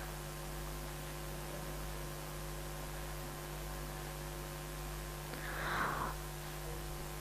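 Steady electrical mains hum over a faint hiss, with no speech. A faint short noise rises and fades about five and a half seconds in.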